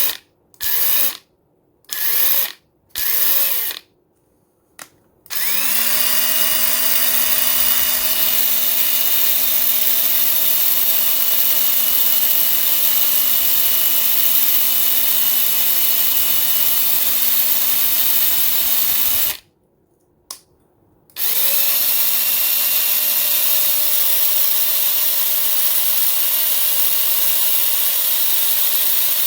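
Ryobi P263 18V cordless 3/8-inch impact wrench with a brushed motor, free-running with no load: a few short trigger blips, then two long runs of about 14 and 8 seconds, the motor spinning up to a steady whine each time. It is being run in to break in its new brushes.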